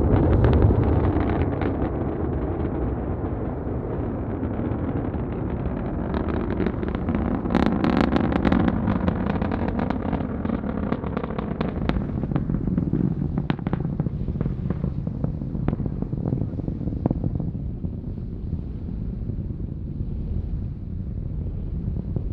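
Vulcan rocket's two BE-4 main engines and two solid rocket boosters climbing away after liftoff: a deep continuous rumble laced with sharp crackling pops, thickest in the middle and easing off a little toward the end.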